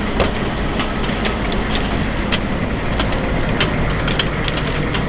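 Humvee's diesel engine idling steadily, with many sharp clicks and knocks coming irregularly, a few a second, over it.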